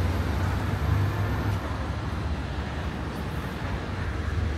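Steady rumble of city road traffic, with vehicles passing on the street.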